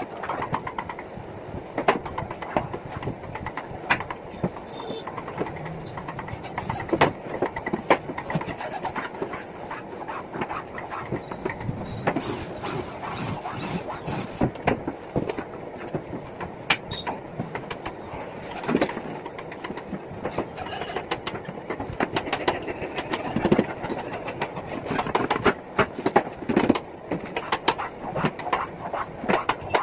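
Irregular knocks and clatter of particle-board panels being handled and fitted together, with a corded electric drill running briefly near the middle to drive screws.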